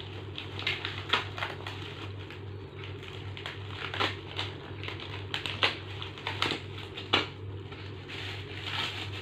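Packaging being handled and unwrapped: irregular crinkling and sharp clicks, with a few louder knocks near the middle and late on.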